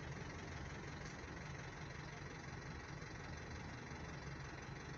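Steady, fairly faint low rumble of city street traffic, with vehicle engines idling.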